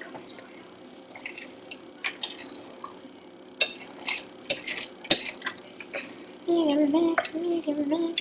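A spoon clinking and scraping against a bowl and baking sheet, several separate clinks, while whoopie pie batter is being spooned out. From about six and a half seconds in, a person hums a wavering tune.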